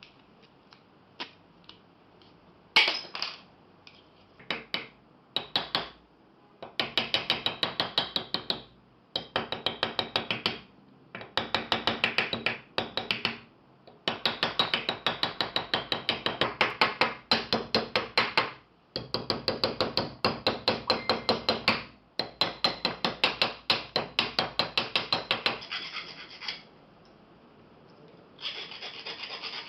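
A few separate knocks, then repeated two-second bursts of fast, regular scraping strokes by hand, about five strokes a second.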